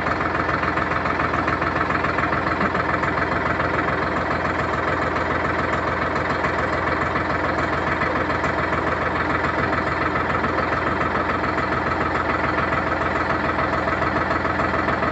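Sonalika Tiger 55 hp tractor's diesel engine idling steadily.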